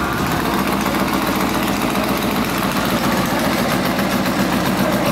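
Drag-racing car engine idling steadily and loudly.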